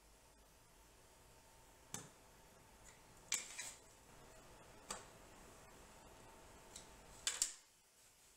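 A router table's insert ring being fitted back into the plate around the bit: a handful of faint clicks and taps, spaced a second or so apart.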